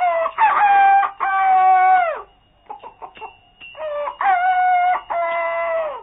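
A rooster crowing twice, each crow a long call that holds its pitch and drops away at the end.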